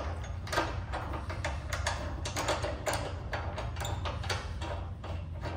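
A chrome lockshield radiator valve being screwed onto a steel panel radiator by hand: a run of quick, irregular small metallic clicks and ticks over a low steady hum.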